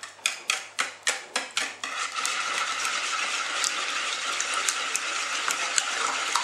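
A wire whisk beating eggs with cream and milk in a bowl. At first the strokes tap against the bowl about three times a second; about two seconds in, the whisking turns fast into a continuous rattle.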